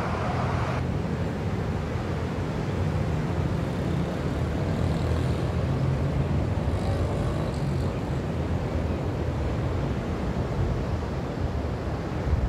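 Steady low rumble of wind buffeting the phone's microphone, over the wash of surf breaking on the shore.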